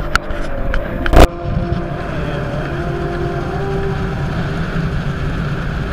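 Motorboat with an outboard motor running at speed, a steady low engine rumble mixed with water and wind noise. A single loud knock comes about a second in.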